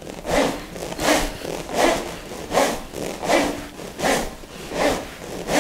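A pair of smovey swing rings, hollow plastic tube rings with steel balls rolling inside, swung back and forth: a rhythmic rushing rattle of the balls running round the rings, one swell about every three quarters of a second.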